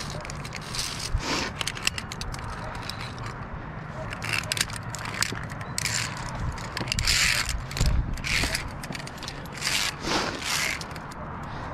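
Via ferrata gear in use: carabiners clicking and scraping along the steel safety cable, with boots scuffing on rock, in a run of short scrapes and clicks.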